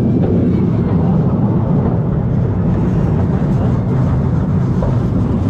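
Steady low rumble of a moving vehicle heard from on board, even in loudness with no distinct knocks or changes.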